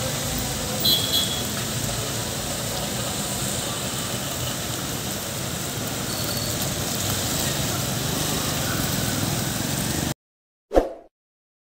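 Passing road traffic: car and motorcycle engines and tyres making a steady rumble and hiss, with two brief high-pitched chirps about a second in. The sound cuts off abruptly near the end, followed by one short isolated sound.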